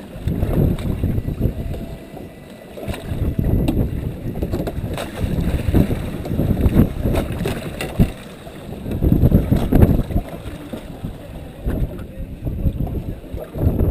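Wind buffeting the microphone over a choppy sea, with water slapping a small boat's hull, rising and falling in irregular gusts. A single sharp knock comes about eight seconds in.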